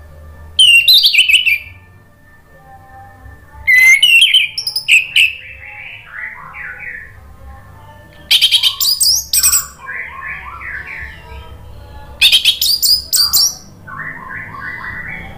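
Orange-headed thrush in full song: four loud, rich, high phrases about four seconds apart, with softer, lower warbling runs between them.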